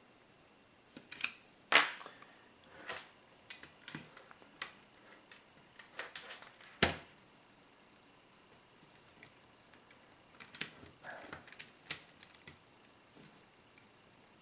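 Small metal parts clicking and clinking as a coil-over shock absorber is fitted by hand onto a metal RC car chassis: irregular light clicks with a few sharper knocks, the loudest about two seconds and about seven seconds in.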